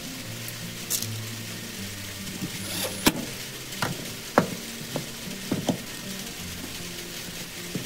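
Soft background music with a steady run of held notes, over a series of short sharp knocks and clacks as wooden pieces and a cordless drill are handled and set down on a wooden workbench; the loudest knock comes about halfway through.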